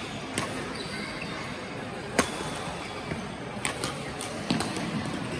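Badminton racquets hitting a shuttlecock, a few sharp clicks with the loudest about two seconds in, over the steady hubbub of a sports hall.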